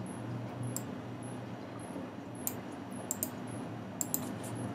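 Several sharp computer-mouse clicks, some in quick pairs, over a steady low hum of room and computer noise.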